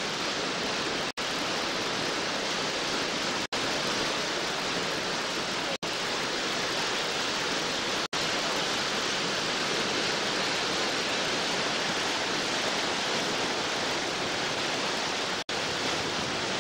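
Steady roar of a whitewater rapid as a raft runs through it. The sound drops out for an instant five times.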